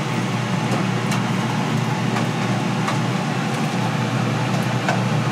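Steady mechanical drone with hiss over it and a few light clicks scattered through.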